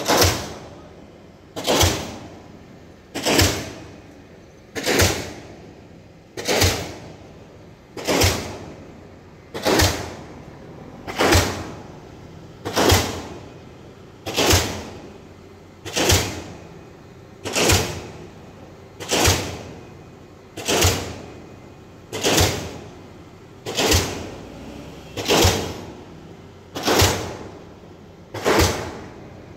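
Pile-driving hammer striking a concrete pile, a heavy blow about every one and a half seconds at a steady pace, each dying away before the next.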